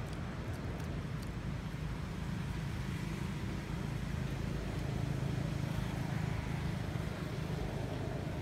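Low, steady rumble of road traffic, swelling a little around the middle as a vehicle passes.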